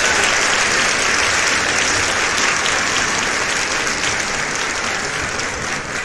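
A crowd applauding, a dense steady patter of clapping that gradually fades.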